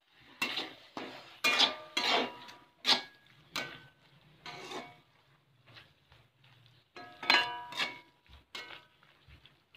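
A spatula stirring mushroom fry in a metal kadai, knocking and scraping against the pan. The strokes come in two runs with a short lull between, and each clank leaves a brief metallic ring.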